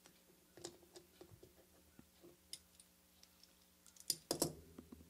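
Case-back remover tool working the large-notched screw-down case back of a Reactor Atom watch: scattered light clicks, with a cluster of louder clicks near the end.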